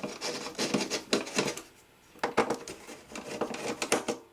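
Light metallic clicks and clatter from the Collins 51Y-7 ADF receiver's sheet-metal modules and cover being handled on the bench, in two runs with a brief pause in the middle.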